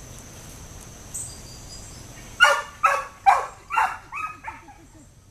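A dog barks six times in quick succession, short sharp barks that grow fainter toward the end.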